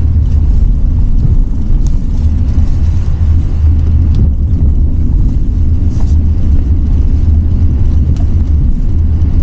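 Steady low rumble inside the cabin of a Hyundai Staria Lounge minivan driving slowly up a rough, narrow lane, with a few faint ticks.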